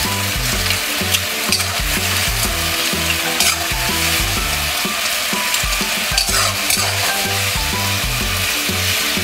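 Razor clams sizzling and bubbling in sauce in a hot wok while a metal ladle stirs and scoops them, with a few short scrapes against the pan.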